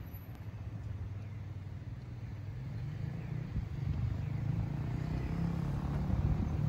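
Outdoor ambience: a steady low rumble that slowly grows louder.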